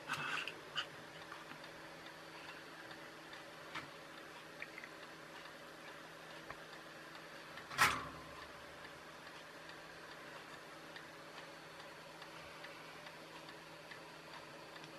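Light clicks and rustles of hands handling a small circuit board and its wire component leads. One sharp knock about eight seconds in.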